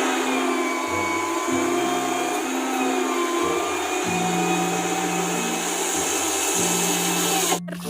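A steady, machine-like rushing hiss with low tones stepping between a few pitches underneath. It cuts off suddenly near the end.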